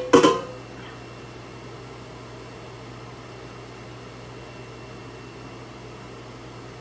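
Two sharp, loud bursts a quarter second apart right at the start, then a steady kitchen background of low hum and even hiss.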